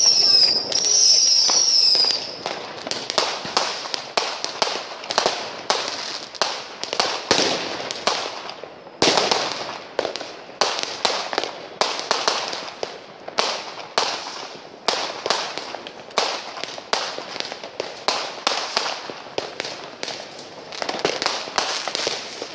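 Fireworks going off: a wavering high whistle from whistling fireworks in the first two seconds, then a dense run of firecracker and rocket bangs, several a second, with a louder bang about nine seconds in.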